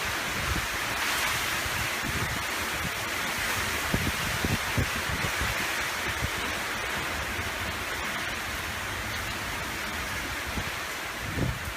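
Steady rushing of strong tropical-storm wind, with a few brief low buffets of wind on the microphone.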